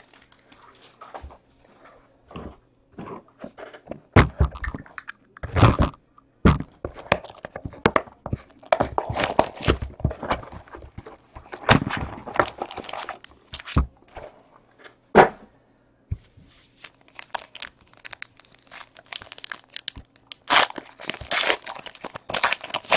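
Clear plastic shrink wrap crinkling and tearing as a trading card box is unwrapped, with scattered knocks and thuds of the cardboard box and card packs being handled on a table.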